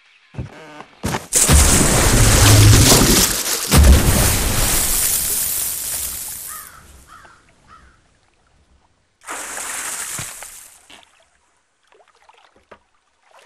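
A deep boom and a large splash, with lake water churning and rushing for about five seconds before it dies away. A second, shorter rush of water follows a few seconds later.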